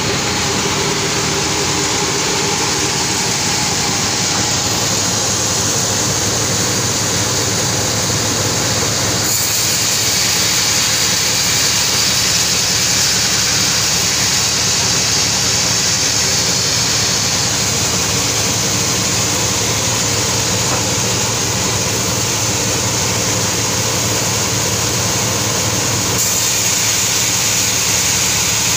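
Sawmill saw machinery running steadily: a constant motor hum under a loud, high hiss. The sound changes character about nine seconds in and again near the end.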